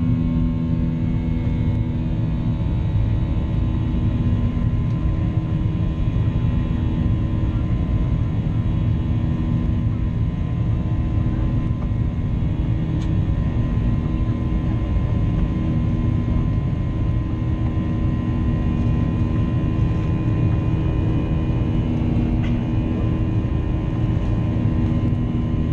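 Cabin noise of a Boeing 737-800 during climb-out after takeoff, heard from a window seat over the wing: its CFM56 turbofan engine runs at climb power as a steady rumble, with thin steady tones above it.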